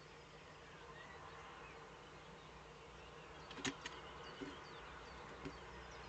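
Faint, distant songbirds chirping in short rising and falling notes, with a sharp knock a little over halfway through followed by a few softer taps as the eagle owl moves on the rock ledge of its nest.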